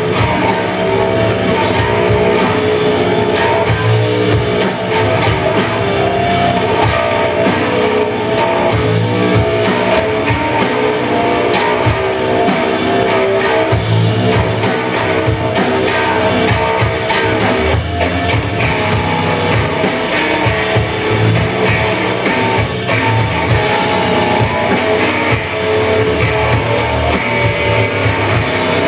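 Sludge metal band playing live on stage: electric guitar, bass guitar and drum kit, loud and steady throughout.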